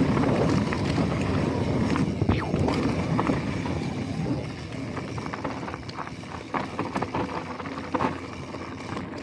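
Mountain bike rolling fast down a steep dirt trail: a rushing noise of tyres on dirt and moving air, loudest for the first couple of seconds, with irregular knocks and rattles from the bike over bumps.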